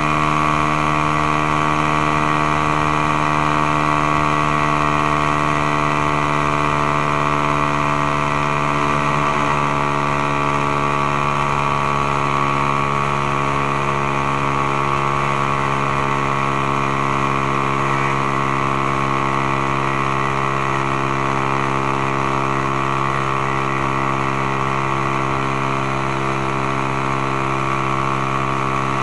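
Suzuki Raider R150 (Satria FU 150) single-cylinder four-stroke engine running at steady revs while the motorcycle cruises, its note barely changing, heard from a camera strapped to the rider's chest.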